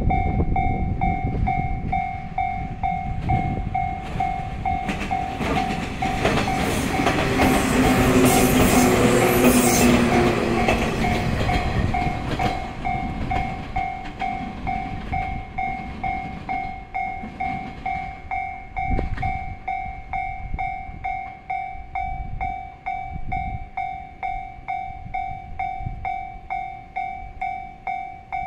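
Japanese level-crossing alarm ringing steadily, about two rings a second, while a JR West 115 series electric multiple unit passes. The train's wheel-on-rail and running noise builds, is loudest about six to twelve seconds in, then fades as it moves away.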